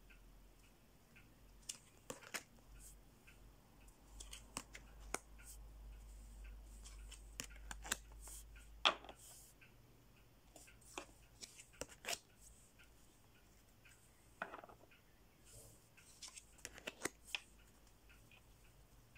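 Tarot cards being handled and turned over one at a time: faint scattered clicks and short rubs of card against card, with the loudest snap a little before halfway and a quick cluster of clicks near the end.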